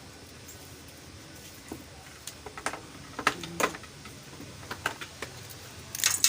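Scattered sharp clicks and light knocks of small hard objects being handled, coming more often from about two seconds in, with the loudest clatter near the end.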